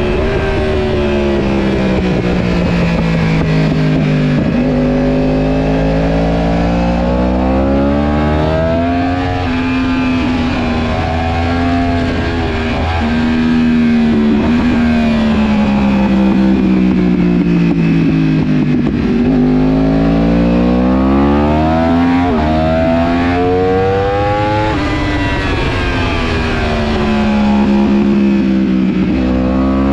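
Yamaha YZF-R1 sportbike's inline-four engine at full race pace, the revs climbing hard on the throttle and dropping sharply on braking and downshifts, over and over through a sequence of corners.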